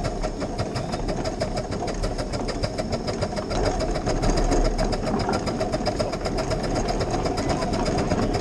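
7¼-inch gauge miniature steam locomotive running along the track, its exhaust beating in a rapid, even rhythm.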